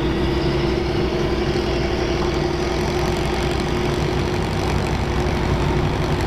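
Heavy engine running steadily at idle: a continuous low rumble with a constant droning tone on top.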